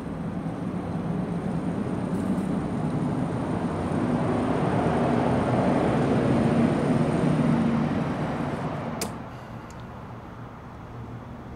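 A motor vehicle running, with low engine hum and road noise that swells louder and then dies away about eight seconds in. A sharp click follows about nine seconds in, with a couple of fainter clicks after it.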